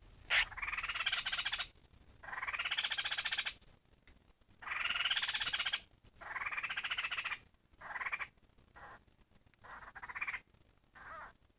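Laughingthrush giving its harsh, rapidly pulsed 'kíu' call: four long rasping calls of about a second and a half each, then several shorter, fainter ones near the end. A sharp click comes just before the first call.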